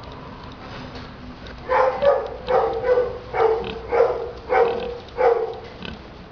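Young pig grunting as it is scratched on the neck: a run of about eight short, pitched grunts, roughly two a second, starting a little under two seconds in.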